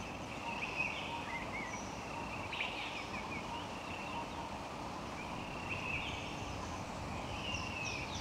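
Birds chirping and calling in short notes that slide up and down, many in quick succession, over a steady low background hiss.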